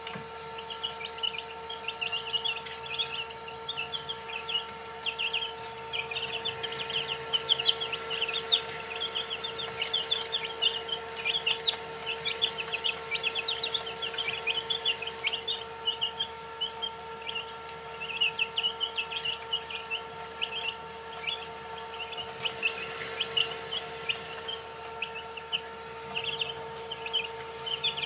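A brood of White Heera chicks peeping: many short, high-pitched chirps overlapping without pause, over a steady electrical-sounding hum.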